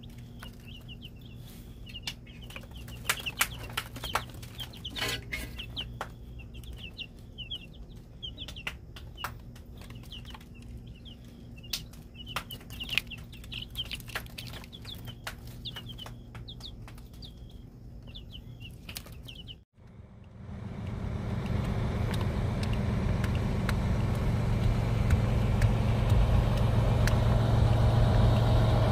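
Young chicks peeping, with rapid short chirps and scattered sharp clicks. About twenty seconds in the sound cuts to a large coach bus's engine running, a steady low drone that grows louder.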